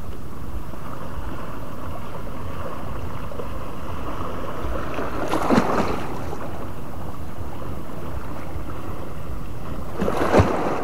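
Steady wind rumbling on the microphone over gently lapping sea water, with two brief louder noise bursts about five and ten seconds in.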